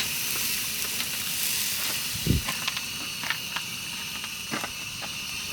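Steady hissing of food cooking on a camp stove, with small crackles and clicks through it and a short low thud a little after two seconds.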